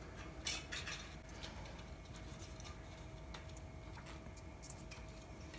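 Faint clicks and rustles of a thin aluminum flashing strip and its paper template being handled, the sharpest click about half a second in, over a faint steady hum.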